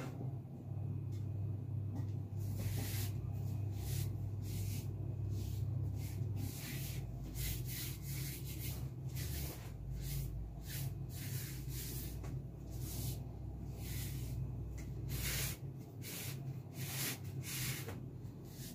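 Hands rubbing and smoothing fondant icing over a cake: irregular short brushing strokes, over a steady low hum.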